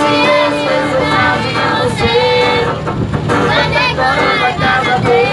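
Forró-style song with female and child voices singing along into a microphone, over music with held sung notes.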